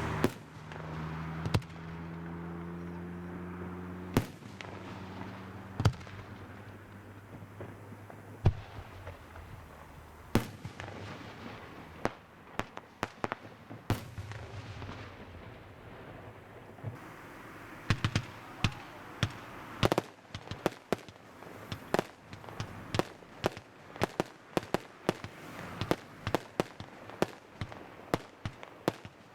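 Fireworks display: scattered single bangs of shells bursting, a few seconds apart. About two-thirds of the way through, a dense run of rapid bangs starts, several a second, and continues to the end. A low steady drone fades out over the first few seconds.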